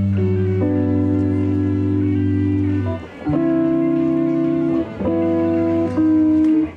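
Guitar playing the slow opening chords of a quiet song, each chord held and ringing, changing every one to three seconds.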